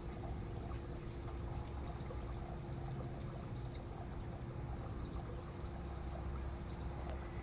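Steady rushing background noise with a constant low hum underneath and no distinct events.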